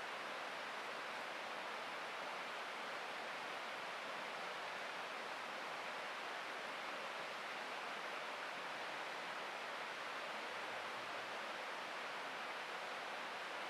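Steady, even rushing noise with no separate sounds in it, like a constant wash of air or water.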